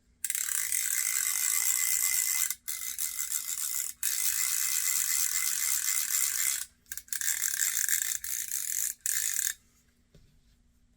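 Fly reel's click-and-pawl drag ratcheting as the spool turns, in several long runs broken by short pauses.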